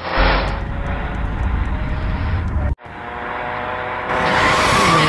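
A car engine running and coming closer, with a heavy low rumble. The sound cuts off abruptly a little under three seconds in. A car then comes on again, growing louder and brighter toward the end.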